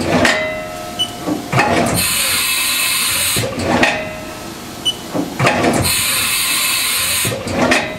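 Haas Super MiniMill's 10-tool automatic toolchanger cycling through tool changes, one about every four seconds. Each cycle has a burst of air hiss lasting over a second, then clunks and a short motor whine as the tools swap.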